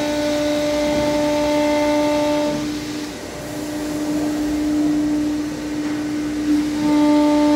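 Flatbed CNC router running: a steady whine over a rushing, vacuum-like noise. The whine drops out briefly about three seconds in, then comes back.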